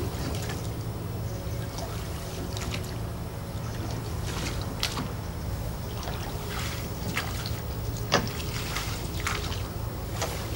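Small rowboat being rowed: oars dipping and splashing, with scattered knocks from the oars, over a steady low rumble. A sharp knock comes about eight seconds in.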